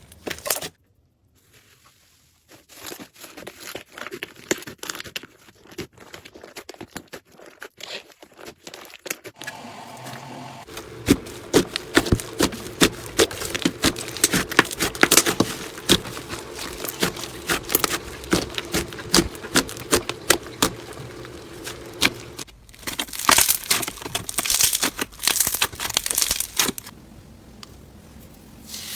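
Slime being handled and squeezed, making dense, irregular crackling and crinkling pops, typical of crunchy slime. The sound changes abruptly a few times, with a brief near-silent gap about a second in.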